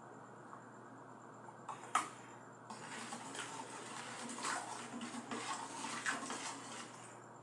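A sharp click about two seconds in, then about four seconds of a splashing, rushing liquid sound that swells and fades unevenly.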